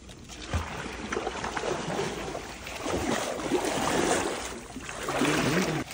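Someone wading through a shallow, muddy stream, water splashing and sloshing with each step. The splashing is loudest about three to four seconds in and again near the end.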